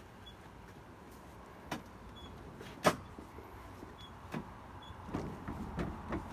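Footsteps and handling knocks on a wooden deck: two sharp clicks, the second the loudest, then a run of softer thumps near the end.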